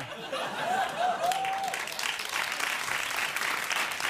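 Studio audience applauding after a joke, the clapping swelling about a second and a half in, with a brief voice calling out from the crowd just before.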